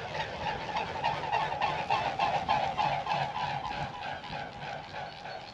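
Geese honking in a rapid run of calls, about five a second, fading near the end.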